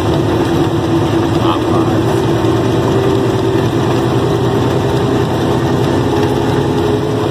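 Truck engine running steadily at low speed, heard from inside the cab, a continuous drone with a steady whine over it.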